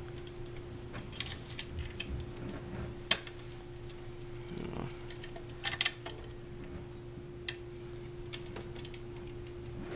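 Small metallic clicks and clinks of a bicycle chain and rear derailleur being worked by hand, with a sharper click about 3 s in and a quick cluster of clinks near 6 s. A steady low hum runs underneath.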